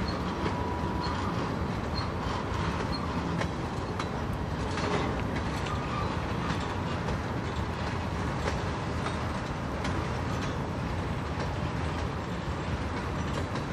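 Freight train rolling past: a steady rumble of cars on the rails, with scattered sharp wheel clicks.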